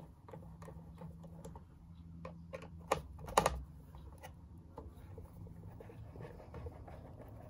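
Small screwdriver backing out the pickup selector switch's mounting screws on a Stratocaster pickguard: scattered light metal clicks and ticks, with a short cluster of louder clicks about three seconds in.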